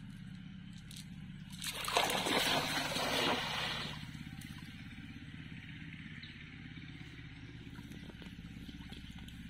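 A cast net thrown out across a pond lands on the water: a spreading splash about two seconds in, lasting about two seconds, as the weighted rim and mesh hit the surface. A steady low rumble runs underneath.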